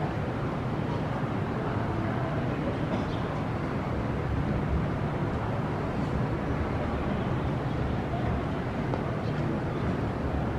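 Steady low rumble of city background noise, the even hum of a busy urban street.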